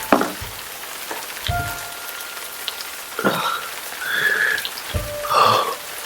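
Steady rain hiss, broken by a few short low knocks and brief tones scattered through it.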